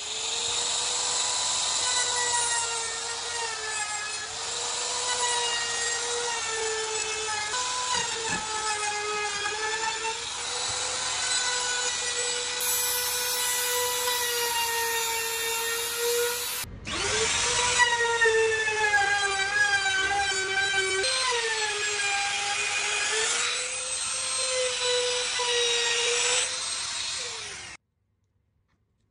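Compact trim router running at high speed while routing a chamfer along the edge of a pine board, a steady high whine whose pitch wavers as the bit takes load. The motor breaks off for a moment about two-thirds of the way through, then runs again and stops near the end.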